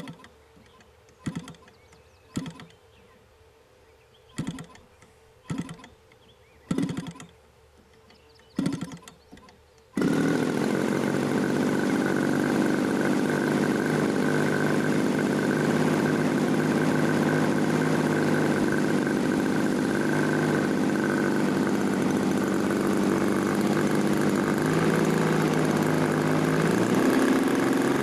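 RC Aero Products JC Evo 28cc gasoline model-airplane engine being started: about seven short pops with pauses between as it fires and dies, then running steadily with a faint whine, speeding up near the end.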